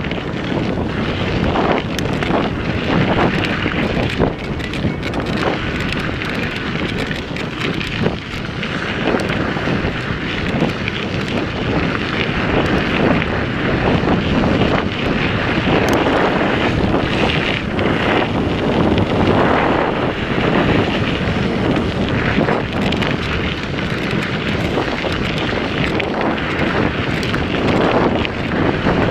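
Wind buffeting the camera microphone of a mountain bike riding fast along a dirt trail, a continuous rough rush with many small clicks and rattles from the tyres and bike over the gravel.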